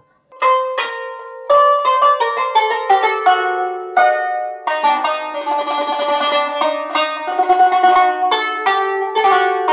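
Outro music: a quick tune of picked, plucked-string notes that ring on over one another, starting about half a second in after a brief silence.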